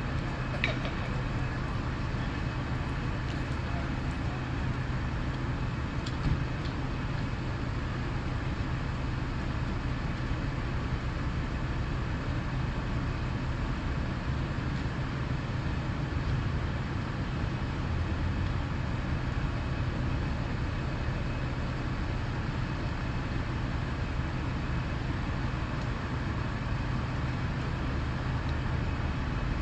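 Steady low rumble of fire engines running at a building fire, with a constant engine hum underneath. Two short sharp pops, one just after the start and one about six seconds in.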